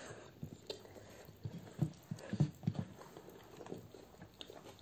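People chewing and smacking their lips while eating rice and chicken gravy with their hands: faint, irregular short clicks, bunched together in the middle.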